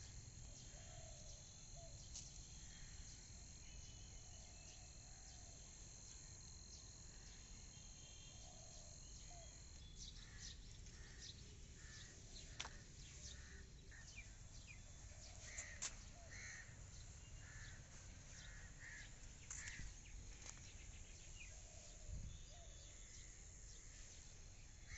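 Faint outdoor garden ambience: birds calling now and then, with a run of short repeated calls from about ten seconds in, and a steady high insect trill that stops about ten seconds in. A low rumble and a few light clicks lie under it.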